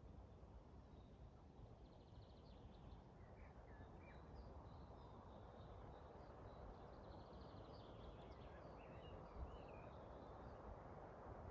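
Faint forest birdsong: scattered short chirps and a few quick trills from several birds, over a steady low rush of wind. A brief low thud about nine seconds in.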